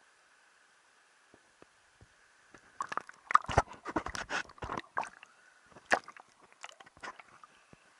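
Water splashing and sloshing in an irregular flurry from about 3 to 5 seconds in, with a few more single splashes near the end.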